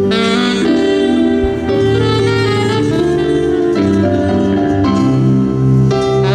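Jazz band playing: a sustained melody line over a moving bass line.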